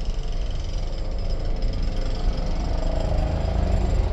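Second-generation 2008 Toyota Vios running, with a rough, rapid rattling clatter, the noise that turns up underneath the car when it accelerates. It is put down to a soft, worn engine support (mount).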